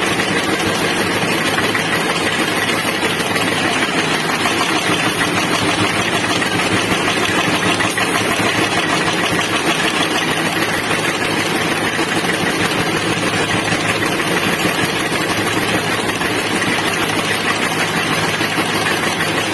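Machinery running steadily, a dense even noise that does not change.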